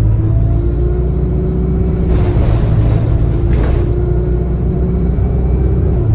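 An ADL Enviro 200 single-deck bus driving along, heard from inside the passenger saloon: a steady low engine rumble with a drivetrain whine that rises a little about a second in. Two brief hissing swells come through at about two and three and a half seconds in.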